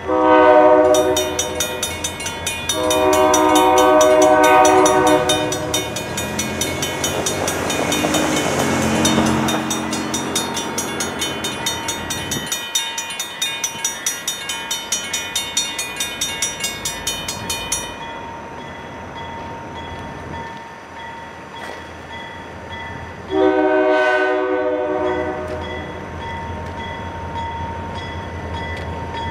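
EMD SD40-2W diesel locomotive's air horn sounding long blasts as the freight approaches: two blasts at the start and another about 23 seconds in. Under the first part, a grade-crossing bell rings rapidly and evenly until it stops about 18 seconds in.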